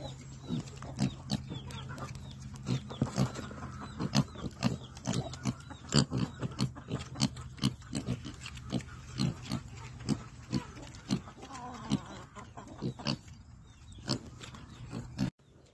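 Several young black pigs eating, their grunts mixed with many short, sharp crunching sounds of chewing, about two or three a second. The sound cuts off abruptly near the end.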